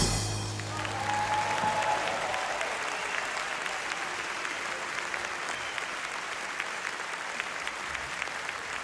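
A large audience applauding steadily, while the last held chord of the big band fades out in the first two seconds.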